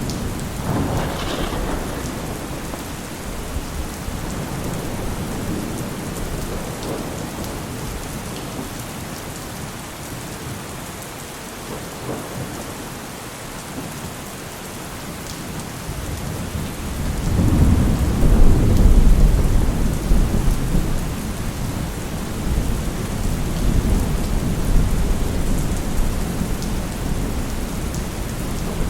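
Heavy rain falling steadily, with thunder: a sharp crack about a second in, then a long, deep rumble that builds up more than halfway through and rolls on to the end.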